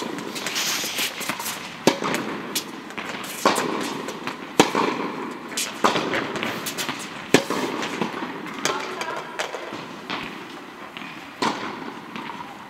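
Tennis balls struck by rackets in a rally: sharp pops every second or so, about five in a row, then a pause and one more hit near the end.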